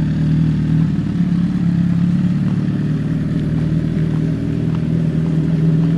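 Suzuki superbike engine running steadily at low revs in first gear while the bike rides off slowly, its pitch holding even.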